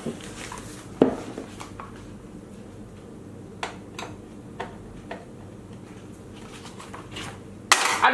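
Scattered sharp clicks and light clatter of small hard objects being handled, over a steady room hum, with a louder sudden noise near the end.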